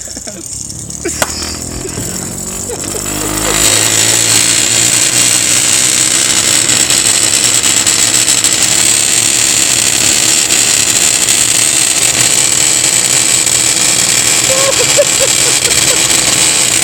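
A motorised spinning contraption built onto a 2TB Seagate hard drive spinning up, its pitch rising over the first three seconds or so, then running loud and steady.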